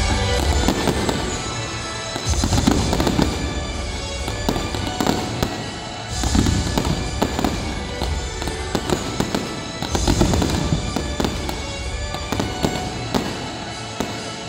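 Fireworks going off in quick succession: bangs and crackling from fountains and bursting aerial shells. Music plays underneath, and a deep low rumble swells up every four seconds or so.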